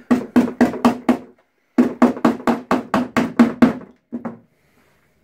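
Hammer tapping a nail through a leather arm pad into a wooden shield board in quick light strokes, about six a second. There are two runs of taps with a short pause between them, then two last taps about four seconds in, and each strike carries the same low ring from the board.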